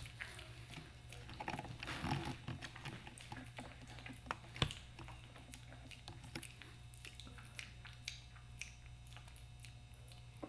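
A piglet eating dry Lucky Charms cereal off a hard floor: a run of small, irregular crunches and clicks as it chews, the loudest about four and a half seconds in.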